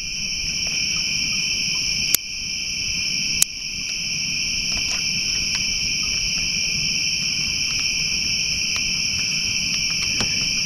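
Steady, continuous chorus of night insects, with a couple of sharp clicks about two and three and a half seconds in.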